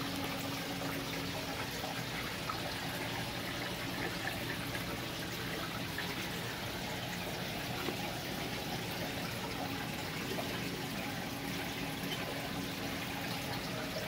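Steady rush and trickle of water circulating in a saltwater aquarium, with a faint low pump hum underneath.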